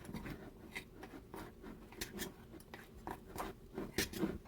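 Spoon scraping and clicking against a bowl while stirring a stiff honey-butter and powdered-sugar icing by hand: irregular short scrapes and taps, two or three a second.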